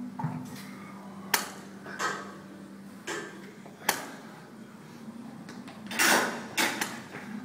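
Heavy plate-loaded dumbbells clanking in sharp, separate metal knocks a second or more apart during a dumbbell bench press. A louder rushing burst comes about six seconds in, over a steady low hum.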